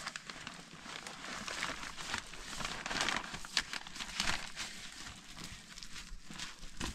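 Wrapping crinkling and rustling in irregular bursts as a package is being opened, busiest around the middle.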